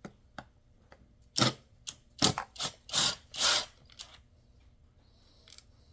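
Hand tools clicking and scraping on the McCulloch MS500i chainsaw's housing while a screw is taken out: a few light clicks, then about six short rasping strokes in quick succession over a couple of seconds.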